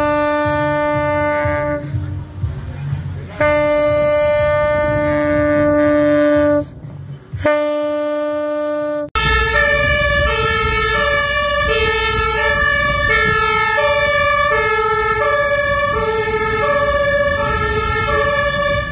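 A vehicle horn sounds three long steady blasts with short gaps, then a fire engine's two-tone siren (Martinshorn) takes over, alternating between two pitches about once a second.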